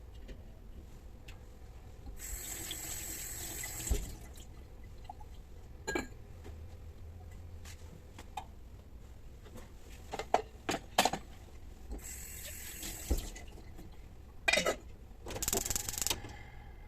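Kitchen tap running twice, each time for under two seconds, with sharp clinks and knocks of pots and lids in between and a short rattle near the end.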